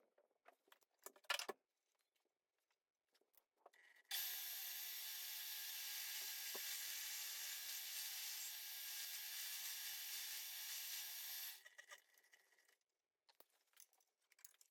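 Milling machine cutting a hole in a metal part for a forge burner fitting: a steady, noisy cutting sound that starts suddenly about four seconds in and stops about seven seconds later. Before it, a few faint clicks and one short knock.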